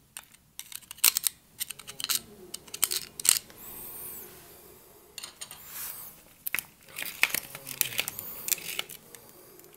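Irregular clicks, taps and scrapes of a metal screwdriver working thick grease into an electric drill's open gearbox, knocking against the gears and housing.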